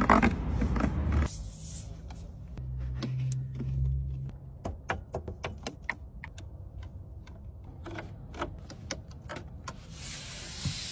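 A run of light, irregular clicks and taps from a Ferrari's cabin controls being handled, with a brief low steady hum about three seconds in.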